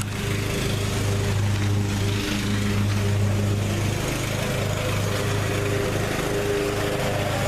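An engine running steadily at a constant speed, with a hiss over it.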